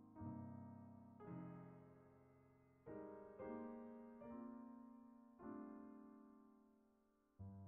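Faint, slow piano music: soft chords struck about once a second and left to fade.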